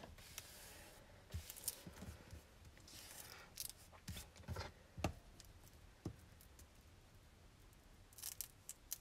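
Quiet paper handling: hands pressing and smoothing black cardstock on a cutting mat, with scattered light taps and clicks. Near the end, a few short brushing scrapes as a bone folder is run over the paper.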